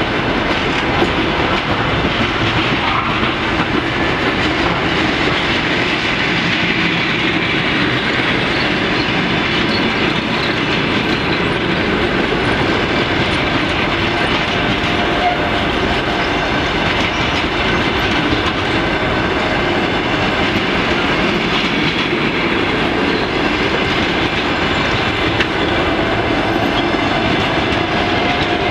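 Passenger train coaches rolling past along a station platform: a loud, steady rumble of wheels on the rails.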